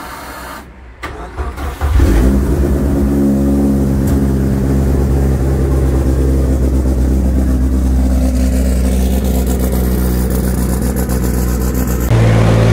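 The turbocharged four-cylinder engine of a Mitsubishi Lancer Evolution X race car starts about two seconds in and settles into a steady idle, running evenly and fairly quietly. The idle gets louder near the end.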